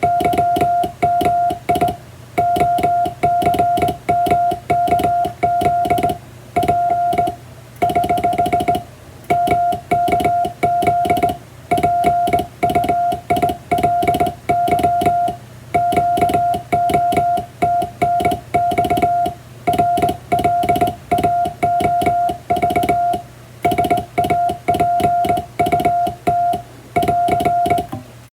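Morse code sent by hand on a vertical straight key: a steady sidetone of about 700 Hz keyed on and off in dots and dashes, with a click at each key stroke. It spells out international (English-text) Morse in telegram format, at an even hand-keyed rhythm.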